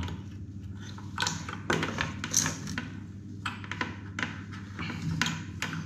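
Light clicks, taps and small knocks of a chrome swivel spout being handled and pushed onto the outlet of an over-sink water heater, scattered irregularly, with a low steady hum underneath.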